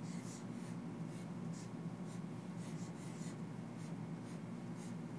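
Dry-erase marker writing on a whiteboard: a quick run of short strokes, over a steady low hum.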